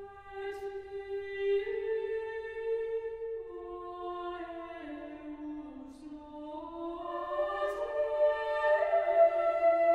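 Slow background music of long held notes in several parts that shift slowly in pitch, growing louder over the last few seconds.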